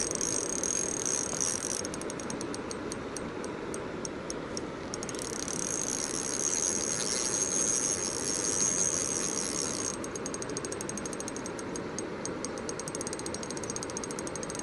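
Spinning reel's drag clicking rapidly as a hooked fish, taken for a big pike, pulls line against the bent rod. The clicking comes in two runs, one starting about two seconds in and a longer one from about ten seconds. Under it runs the steady rush of a river rapid.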